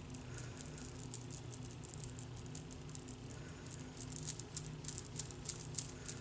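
Makeup brush stroking across the skin of the cheek: a faint, rapid, scratchy patter of short brush strokes, busier near the end.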